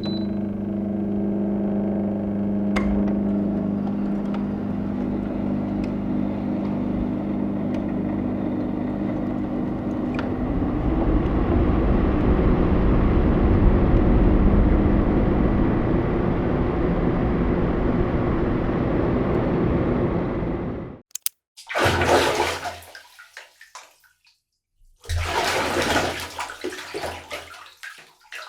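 Water running steadily with a low hum under it, getting louder about ten seconds in, then stopping suddenly; after a short gap come two shorter gushes of running water.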